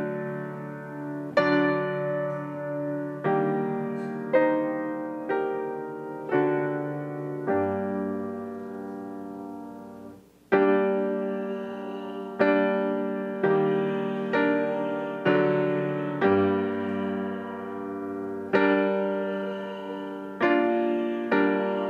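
Piano playing a slow hymn tune through once, chords struck about once a second and left to ring and fade, with a short break about ten seconds in.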